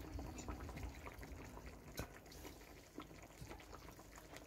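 Quiet room tone: a low steady hum with a few faint clicks, the sharpest about two seconds in.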